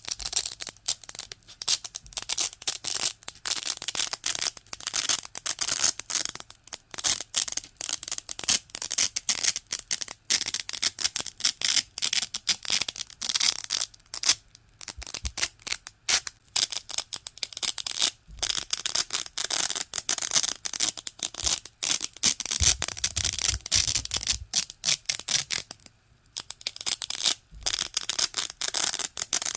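Velcro hook-and-loop fastener being pulled apart and rubbed over and over: a dense, crunchy crackling in quick strokes, with short pauses now and then.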